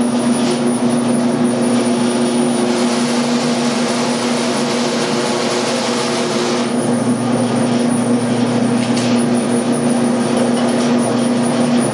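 Electric meat grinder's motor running with a steady hum as meat is pushed through its stuffing tube into a sausage casing, sounding rougher for a few seconds in the middle.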